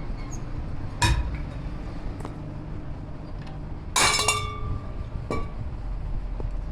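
Metal parts clinking against each other: a sharp clink about a second in, a louder ringing clatter at about four seconds, and a smaller clink soon after, over a steady low hum.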